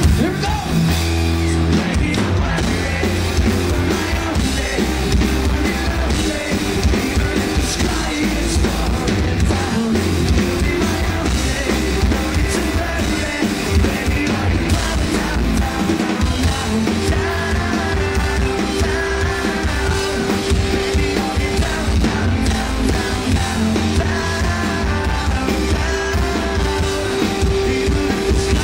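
Rock band playing live: a singer singing over drums and amplified instruments, loud and continuous.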